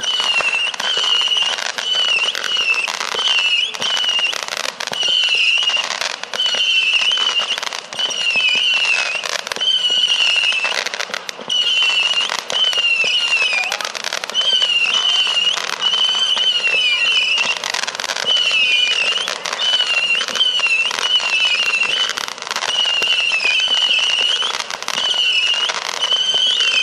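A saturn missile fireworks battery firing continuously: a wavering whistle about once a second from the whistling-tail shots, over a constant rapid popping and crackling.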